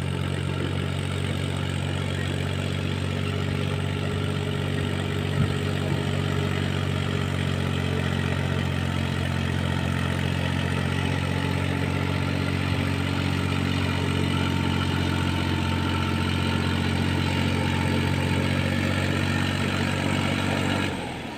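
Massey Ferguson 7235 tractor's diesel engine running steadily under load as it pulls a disc harrow through a field, with one brief click about five seconds in.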